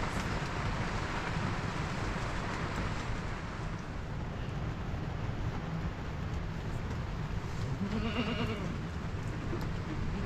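Steady rain and wind noise with a low rumble. About eight seconds in, an animal gives one wavering bleat lasting about a second.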